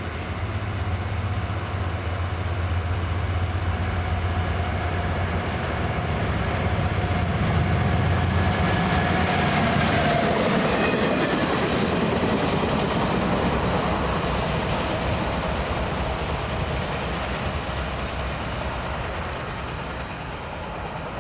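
Norfolk Southern diesel freight locomotive hauling a single gondola past: a low engine drone, then wheels rolling on the rails. It is loudest about halfway through and fades as the train moves away.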